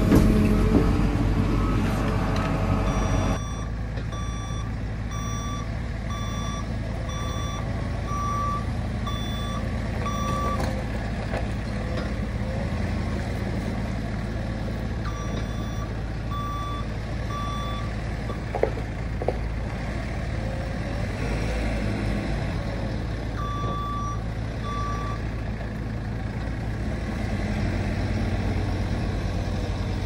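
JCB 4CX backhoe loader's diesel engine running, heard from inside the cab for the first three seconds and then from outside. A reversing alarm beeps in three spells, about three beeps every two seconds, as the machine backs up, with two sharp knocks a little past halfway.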